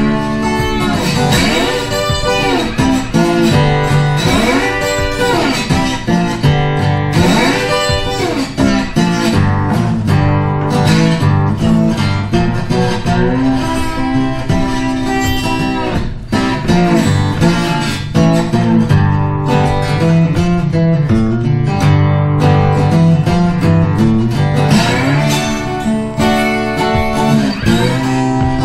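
Background music: a guitar-led instrumental, strummed and plucked, with notes bending up and down in the first several seconds.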